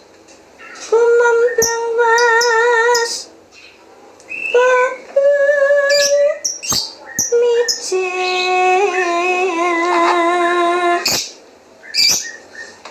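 A woman singing unaccompanied: a slow melody of long held notes with vibrato, in several phrases with short breaks between them. A few sharp clicks fall between the phrases.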